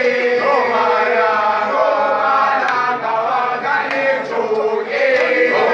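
A group of schoolboys singing a gwijo, a Xhosa chant song, together in unaccompanied voices, with the notes held long and sliding between pitches.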